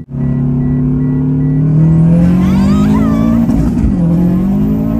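Sports car engine accelerating hard, its pitch climbing steadily, then dropping briefly about four seconds in at a gear change before climbing again.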